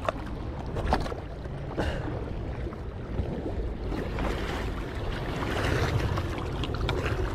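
Wind buffeting the microphone over small waves lapping and splashing against a sandstone rock shelf, with a few short knocks about one and two seconds in.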